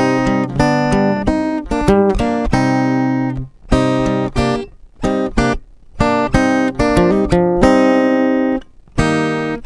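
Title music on acoustic guitar: chords played in phrases, with a few short breaks.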